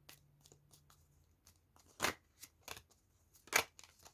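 Tarot cards being handled and drawn from the deck: a few faint ticks, then two sharp card snaps about two seconds and three and a half seconds in.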